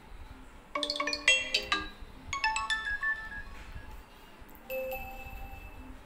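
iQOO Z5 5G smartphone speaker playing short notification ringtone previews one after another. A quick run of bright notes comes about a second in, a second short melody follows around two and a half seconds, and a brief held tone sounds near five seconds.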